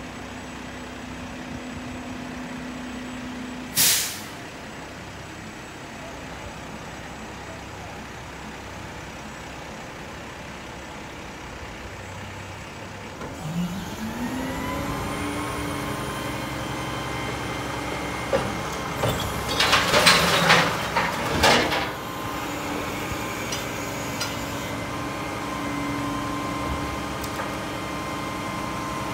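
Mack LR diesel garbage truck: a sharp air-brake hiss about four seconds in. About halfway through, the engine revs up and holds high to drive the hydraulics as the Curotto-Can arm works. A few seconds later there is a loud burst of clattering noise lasting about two seconds.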